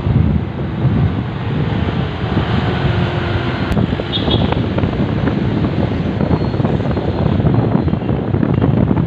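Wind buffeting the microphone of a moving motorcycle, with steady road and traffic noise underneath.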